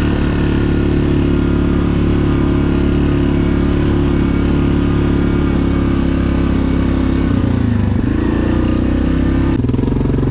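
Yamaha Grizzly ATV's single-cylinder engine running steadily, its note dipping briefly and picking back up about three quarters of the way through.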